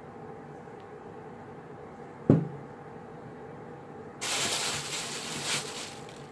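A single sharp knock as the clay doll limb is set down on the cutting mat, then about two seconds of a plastic bag rustling, over a faint steady hum.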